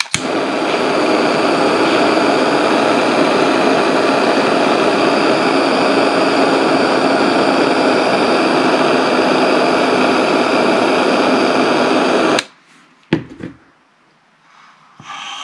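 Handheld butane torch burning with a steady hiss as it heats a brass heat-set insert on a bolt, then shut off suddenly after about twelve seconds. A single sharp click follows about a second later.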